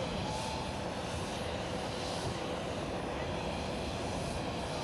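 Jet airliner on approach to land, a steady rushing engine noise.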